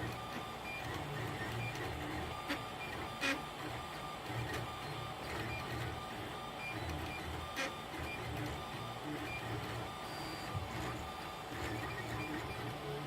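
Desktop 3D printer running a print, its motors whining in short, quickly changing pitches as the print head darts back and forth. A couple of brief clicks sound partway through.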